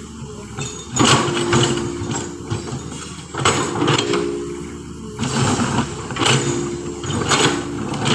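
Diesel engine of heavy road-work machinery running and revving in repeated surges about every two seconds, with rattling, scraping noise at each surge.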